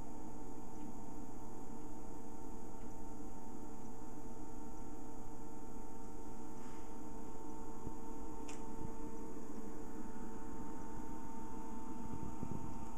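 Steady low hum, with a couple of faint clicks past the middle.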